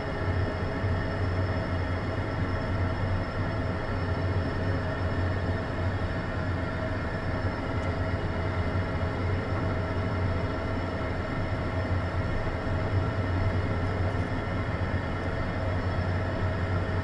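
Beechcraft Premier I's twin Williams FJ44 turbofan engines running at idle, heard from inside the cockpit: a steady low hum under a steady turbine whine.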